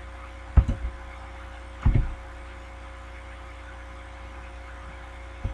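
Computer keyboard keystrokes picked up as short dull thuds, three of them spread unevenly a second or more apart, as digits are typed into spreadsheet cells. A steady low electrical hum runs underneath.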